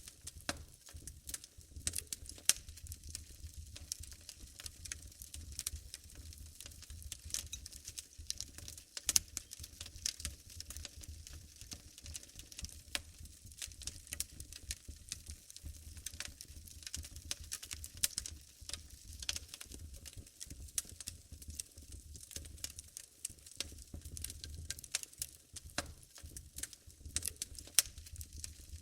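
Wood fire in a fireplace crackling and popping: a continuous scatter of sharp irregular pops, a few louder ones, over a low rumble of the flames.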